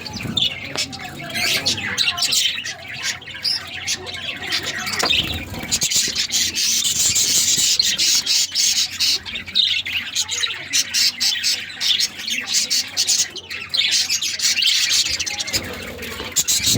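A colony of budgerigars chattering together, a continuous dense mix of many overlapping chirps and squawks.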